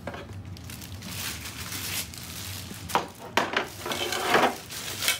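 Clear plastic wrapping crinkling and rustling as it is pulled off black shelf panels, with a few sharp knocks as the panels are handled.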